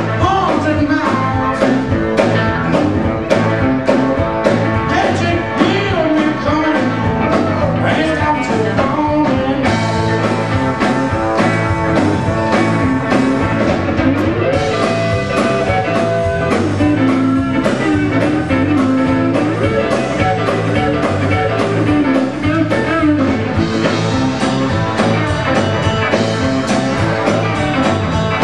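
A blues band playing, with electric guitar over a steady beat.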